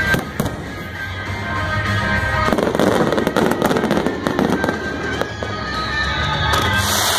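Aerial fireworks bursting with sharp bangs, then a dense spell of crackling from about two and a half seconds in as crackling stars fall, over music playing.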